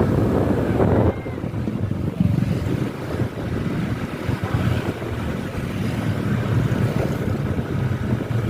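A moving vehicle's engine and road rumble, with wind buffeting the microphone. A louder sound cuts off sharply about a second in.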